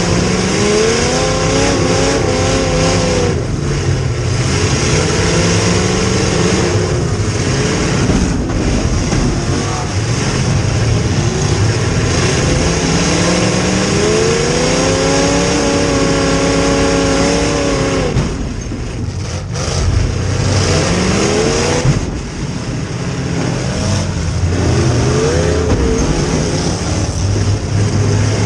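Demolition derby car's V8 engine, heard from inside the car, revving up and dropping back several times over a steady loud running. The longest climb in revs comes around the middle.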